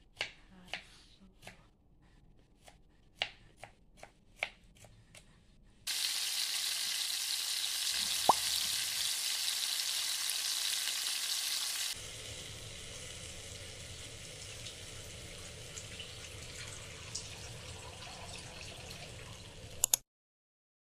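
A knife slicing garlic cloves on a cutting board, a string of sharp knocks at uneven intervals. About six seconds in, a loud steady sizzle of egg curry cooking in a frying pan takes over, with one sharp clink about two seconds later; from about twelve seconds in, a quieter steady sizzle continues until it cuts off near the end.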